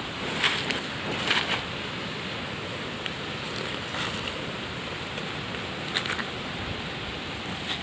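Steady rushing noise with a few short rustling crackles, about half a second, a second and a half and six seconds in.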